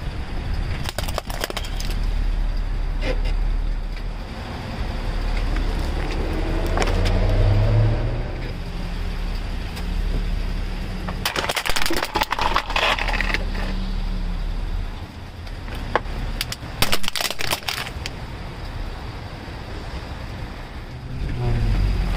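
Car tyre rolling slowly over plastic objects on wet asphalt, the plastic cracking and crunching under it in several bursts, loudest about eleven to thirteen seconds in and again around seventeen seconds, over the low rumble of the car.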